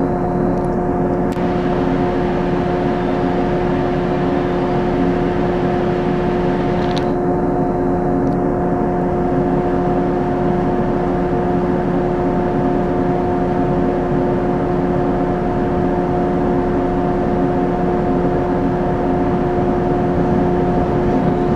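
A steady, unchanging hum made of several held tones, with faint clicks about one second and seven seconds in.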